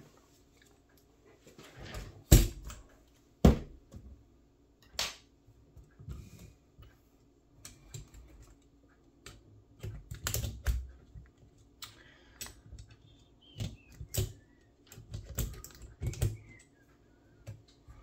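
Sheet-metal top plate being fitted onto a Toshiba e-Studio copier's fuser unit: a string of irregular clicks and knocks of metal on the frame, with two louder knocks a few seconds in.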